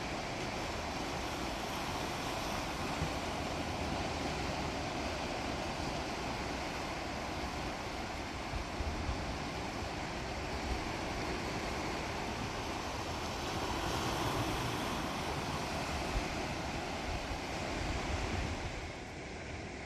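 Sea waves washing on the shore as a steady rush of surf, with wind buffeting the microphone in low rumbling gusts.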